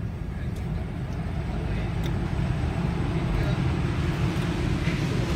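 Automatic car wash heard from inside the car's cabin: a steady low noise of the wash machinery and car that slowly grows louder.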